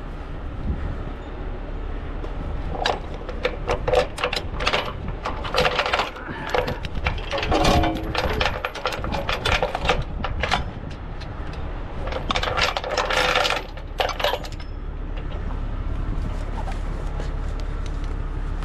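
Steel tow chains clinking and rattling as they are handled and hooked, a run of metal clinks in clusters that stops about fourteen seconds in, over a low steady rumble.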